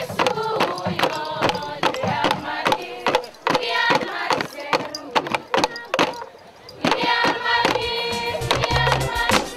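A group of women singing a traditional dance song together over sharp, regular beats, with a short lull partway through. A deep bass beat comes in near the end.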